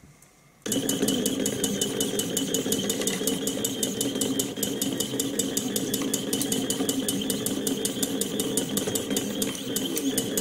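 Stepper motors of a cable-driven delta 3D printer moving its effector through plane-probing calibration, starting just under a second in: a steady motor hum with a rapid, even ticking.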